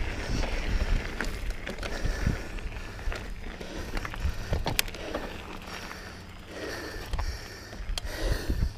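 Mountain bike rolling along a loose gravel dirt track: tyre crunch and frame rattle, with a few sharp clicks and a steady low wind rumble on the bike-mounted camera's microphone.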